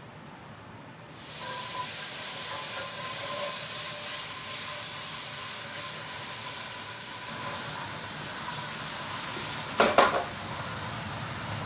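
Chickpeas sizzling as they fry in hot garlic oil in a stainless steel skillet, the hiss starting suddenly about a second in and holding steady. Near the end, two or three sharp metallic knocks.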